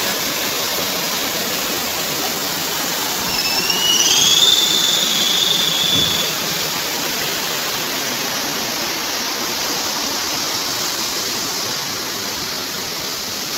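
Steady rush of river water. About three seconds in, a single high whistle rises and then holds for about three seconds.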